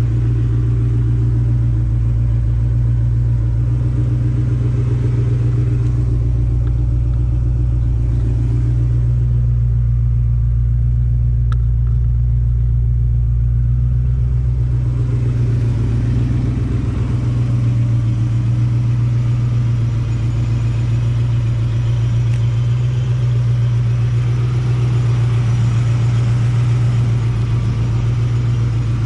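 Ford Mustang with a Borla ATAK cat-back exhaust running steadily, a deep, even exhaust hum with no big revs.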